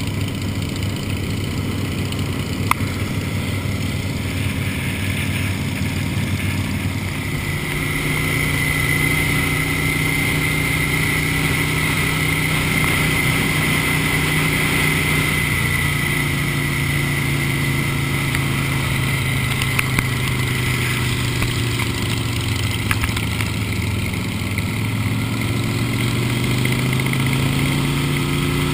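Harley-Davidson V-twin motorcycle engine running at road speed, heard from a camera on the bike with wind rushing over the microphone. The engine note steps up about a quarter of the way in as the bike speeds up, then holds fairly steady.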